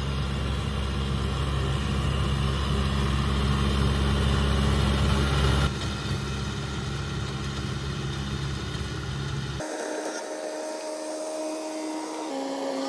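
Farm tractor's diesel engine running steadily while working a rotary tiller through soil. Its sound shifts abruptly about six seconds in and again about ten seconds in, from a deep steady note to a thinner, higher one.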